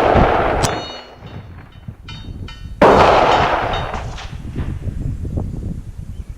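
Daniel Defense AR-15 rifle firing .223 Remington: one shot about three seconds in, cracking and echoing off over a second, after the fading echo of the shot before. Light metallic pings fall in between, and gusting wind rumbles on the microphone throughout.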